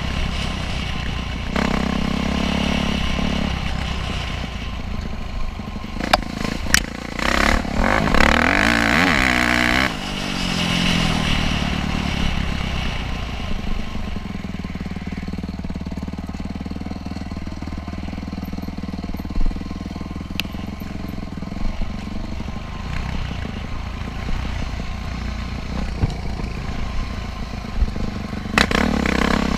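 Dirt bike engine running as the bike rides over rough ground, with a burst of revving about eight seconds in. Sharp knocks and clatter come from the bike just before the revving.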